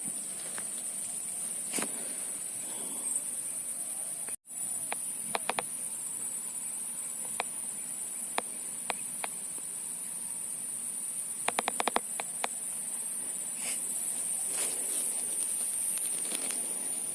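Steady high-pitched chirring of insects, crickets or cicadas, with scattered faint clicks, including a quick run of about six clicks about three-quarters of the way through, and a brief cut-out of all sound about a quarter of the way in.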